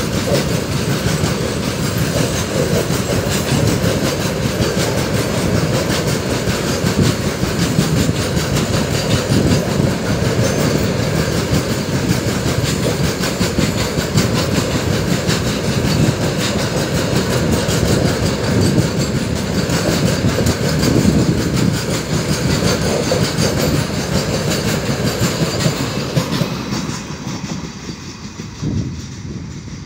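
A long goods train of BCNHL open wagons rolling past close by: steady loud rumble with wheels clattering over the rails. It fades about 27 seconds in as the last vehicle passes and the train moves away.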